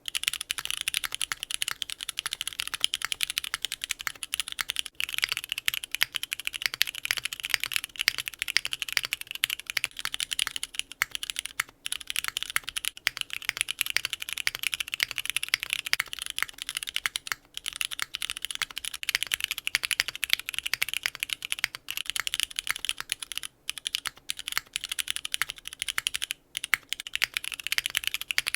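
Fast continuous typing on a foamless, gasket-mounted Neo65 custom mechanical keyboard with Cherry MX2A Black linear switches, an aluminium plate and GMK keycaps: a dense stream of key clacks broken by a few short pauses.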